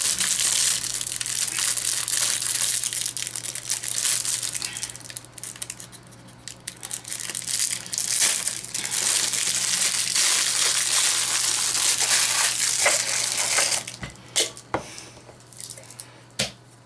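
Clear plastic wrapper crinkling and crumpling in the hands as a small vinyl figure is unwrapped. The crackle thins out about two-thirds of the way through, and a few light clicks follow near the end.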